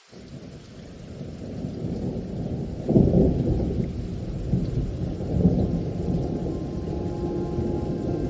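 Low rolling thunder that starts suddenly and swells over about two seconds, loudest about three seconds in and again near five and a half seconds, over steady rain.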